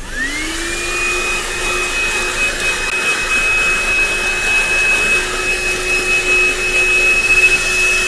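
ThisWorx 106W 12-volt handheld car vacuum, fitted with its brush attachment, switching on and running on carpet. The motor whine rises in pitch over the first half second, then holds steady with a rushing air noise.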